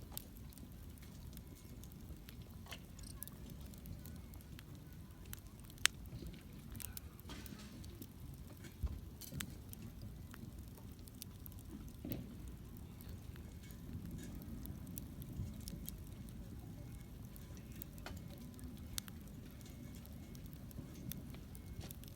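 Wood campfire crackling: scattered sharp pops and snaps, the loudest about six seconds in, over a low steady rumble.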